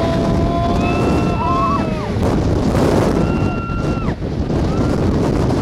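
Strong wind buffeting the microphone, with a gusting rumble. Over it, a few steady whining tones each hold for a second or so and then break off.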